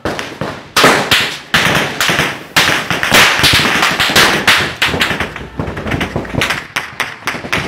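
A rapid, irregular run of loud, sharp bangs and knocks, coming closer together in the second half.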